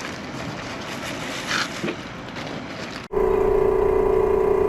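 Open-air traffic noise, then an abrupt cut about three seconds in to a small portable air pump running with a steady, high-pitched electric buzz.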